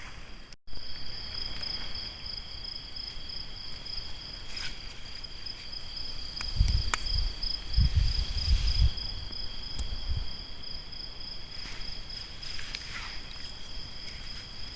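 Night insects, crickets or similar, chirring continuously in two steady, high, even tones. A few sharp clicks sound over them, and a cluster of low thumps comes in the middle and is the loudest part.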